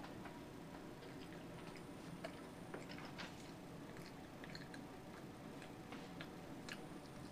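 Faint, irregular small crunching clicks of a monkey chewing nuts, over a steady low room hum.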